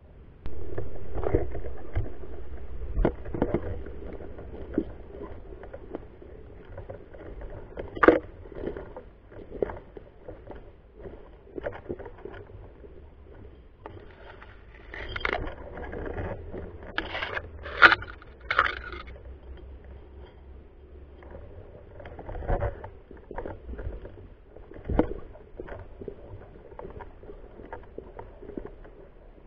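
Scraping, rustling handling noise from a camera mounted on an airsoft sniper rifle as the rifle is carried through undergrowth, rubbing against the player's ghillie suit and gear. A loud low rumble starts about half a second in and fades, with irregular clicks and scrapes throughout and a few sharper clicks.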